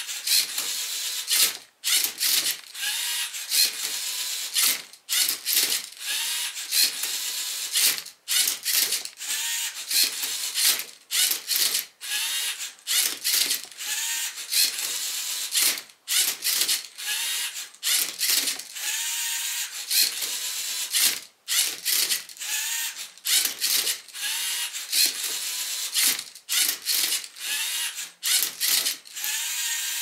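LEGO Mindstorms NXT servo motors whirring in quick stop-start moves as the MindCuber robot turns its turntable and tips the Rubik's cube over with its arm, the gears and plastic parts clattering with each move. This is the robot partway through solving the cube, alternating whole-cube rotations with twists of the bottom layer.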